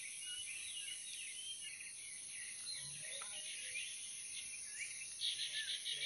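Several wild birds chirping and whistling in short calls over a steady high hiss, with a rapid trilling call loudest near the end.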